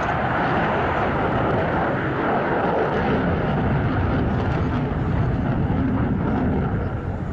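F/A-18 twin-engine jet running in flight, a loud steady rush of jet noise that grows deeper over the seconds.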